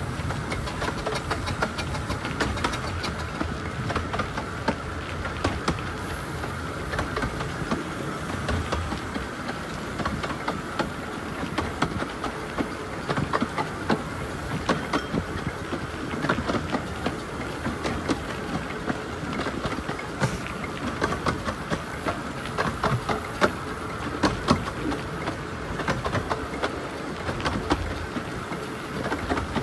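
15-inch gauge steam locomotive Spitfire and a train running side by side, a steady rumble with frequent sharp clicks of wheels over the rails.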